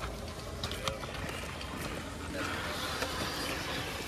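Six-wheeled RC scale rock crawler's electric motor and gears whining as it creeps over rock, with a few short clicks of the truck against the stones in the first second.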